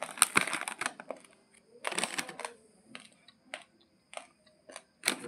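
Plastic rice bag crinkling as it is handled, dense for about the first second. After that come scattered short rustles and clicks with quiet gaps between.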